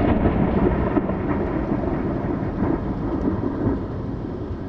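Thunder rumbling after a sudden crack, slowly dying away.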